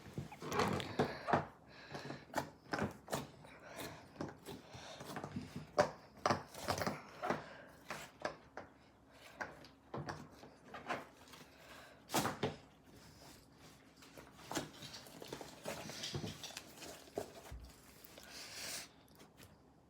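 Slime being squished and kneaded by hand: a run of irregular sticky clicks and small pops, some louder than others, with brief crackly stretches near the end.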